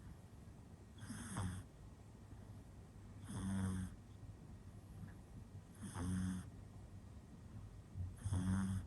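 Pug puppy snoring in its sleep: four snores, one about every two and a half seconds.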